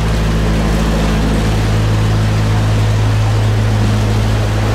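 Narrowboat's inboard engine running steadily under way, a constant low drone.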